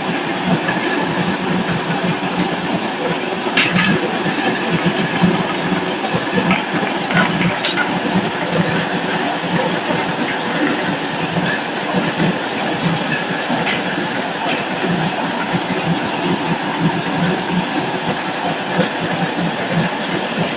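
Many marbles rolling and clattering down a wooden double-slope marble track and treadmill, a steady dense rattle with scattered sharper clicks.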